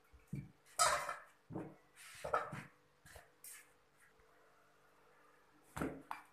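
Scattered short knocks and clatters of plates and tableware being handled. The loudest comes about a second in, and another comes about six seconds in as a hand sets a flatbread down.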